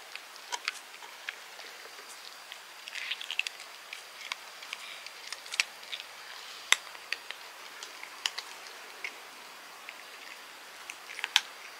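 Cats crunching small dry treats eaten from a hand: irregular sharp crunches and clicks, with a quick cluster about three seconds in and another near the end.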